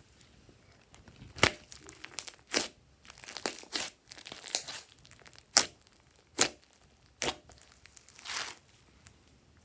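Green slime squeezed and pressed by hand, crackling softly with about five sharp pops as trapped air bursts out of it.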